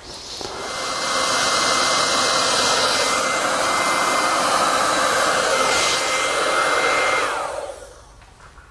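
Handheld hot air gun running: a steady blowing noise with a thin high whine, building up as it starts and switched off about seven seconds in, the whine falling as the fan runs down. It is heating an exhaust clamp joint to cure exhaust sealing paste.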